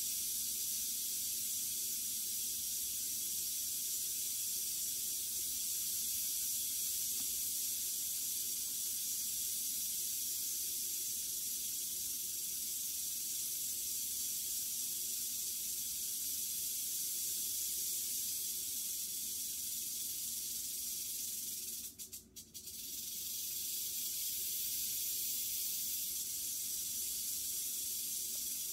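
Western diamondback rattlesnake rattling its tail in a steady, continuous buzz. It breaks off briefly about twenty-two seconds in, then starts again.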